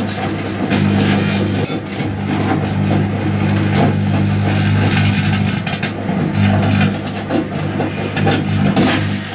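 Microwave oven running with its steady hum, over irregular crackling and popping from a piece of lithium metal burning inside it.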